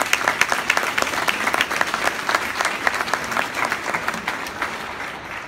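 Audience applauding, many hands clapping at once, dying down toward the end.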